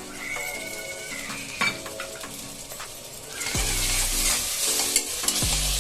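Ginger-garlic paste frying in hot oil with onions and tomatoes while a spoon stirs and scrapes the pan. The sizzling turns much louder about three and a half seconds in.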